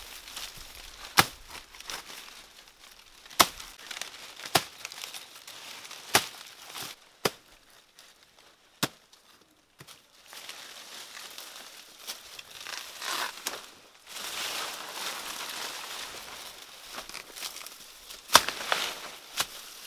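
Sharp chops into a green banana trunk, a second or two apart and then again near the end, with dry banana leaves crackling and rustling as they are pulled and pushed aside in between.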